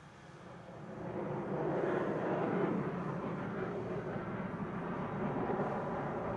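Jet noise from the Sukhoi Su-35's twin AL-41F1S turbofans, swelling over about two seconds as the fighter nears, then holding as a steady rushing roar.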